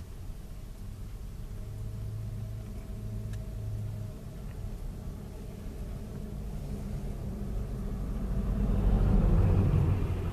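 Low street-traffic rumble, then a pickup truck's engine and tyres growing louder as it drives past close by, loudest near the end and fading as it pulls away.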